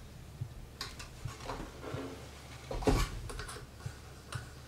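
Handling noises on a small belt grinder: a few light clicks and knocks as its quick-release belt tensioner is tightened and the belt and wheels are set by hand, with one louder knock about three seconds in.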